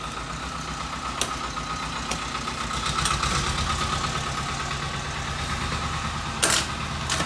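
A few sharp clicks and knocks of the plastic covers of an HP LaserJet 1020 printer being handled and fitted onto its frame, the loudest about six and a half seconds in, over a steady low mechanical hum.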